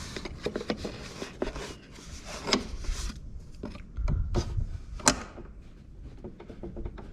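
Hand work on the steering bolts of an ATV: scattered clicks, knocks and rubbing of metal parts and tools, with one sharp click about five seconds in.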